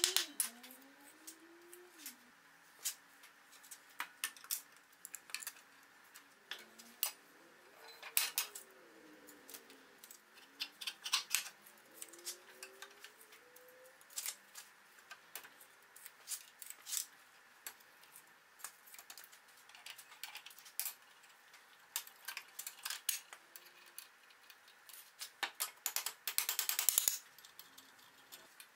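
Steel bar clamps and iron wagon fittings being handled and tightened: scattered sharp metallic clanks and clicks, a few rising squeaks, and a quick run of ratcheting clicks near the end.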